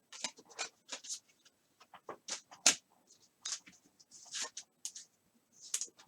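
Football trading cards being handled and flicked through by hand: a run of short, irregular swishes and clicks of card stock sliding over card.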